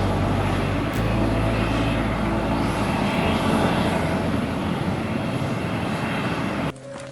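Aircraft engines running: a loud, steady noise with a low hum, cutting off abruptly near the end.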